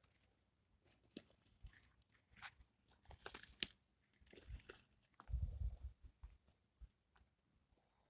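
Dry pine needles and twigs crackling and rustling in short, scattered bursts as they are handled or stepped on, with a brief dull low rumble a little past the middle.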